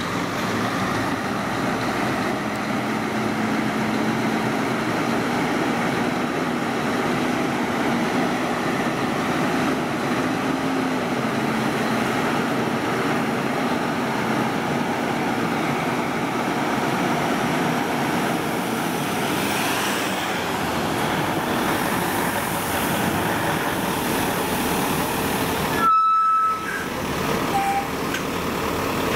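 Heavy-haul trucks' diesel engines running steadily as the slow convoy passes close by. A short horn blast sounds near the end.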